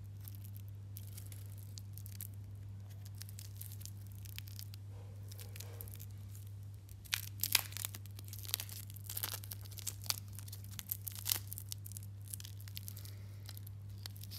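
Clear plastic protective film crinkling and crackling as it is handled and peeled off a stainless steel watch bracelet, busier and louder in the second half, over a steady low hum.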